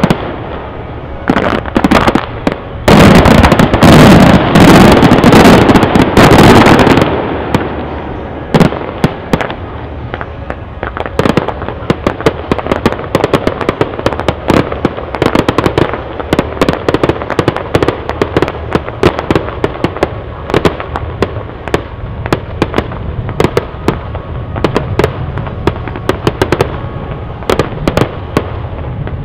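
Fireworks going off: a dense, loud barrage of bangs from about three to seven seconds in, then a steady run of crackles and pops from bursting shells.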